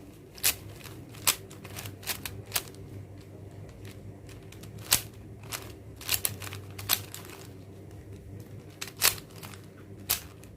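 A 4x4 Rubik's cube being turned by hand through an algorithm, its layers clacking as they snap round, in irregular sharp clicks a second or so apart, some in quick pairs. A low steady hum runs underneath.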